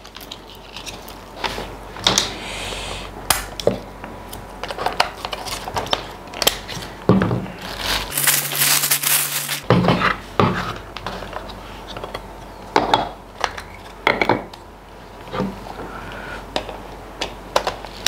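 Hands handling a Canon EOS Rebel T6 DSLR body, fitting the battery and mounting a lens and twisting it on: a run of small plastic clicks and knocks. A brief loud rustle comes about halfway through.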